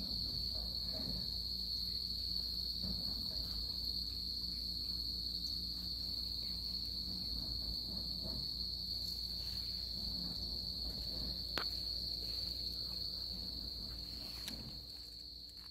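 Crickets chirring in a steady, unbroken high-pitched drone, with two sharp clicks in the last few seconds.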